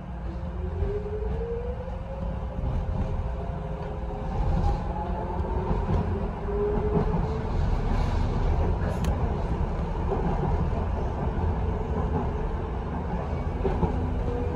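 Docklands Light Railway train heard from inside the front of the carriage. The electric traction motors whine, several tones rising in pitch over the first several seconds as the train picks up speed and then levelling off, over a steady rumble of wheels on the rails.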